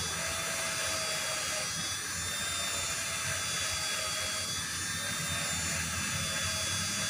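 Steady mechanical drone with faint high-pitched whines over a low hum, holding level with no distinct knocks or clicks.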